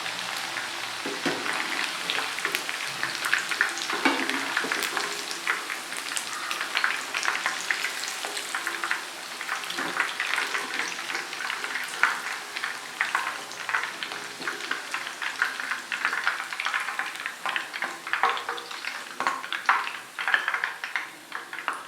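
Pieces of seer fish coated in chilli masala and rice flour frying in hot oil in a pan, sizzling with many sharp crackles and pops, well cooked through. A utensil scrapes and taps in the pan now and then as the pieces are turned and lifted out.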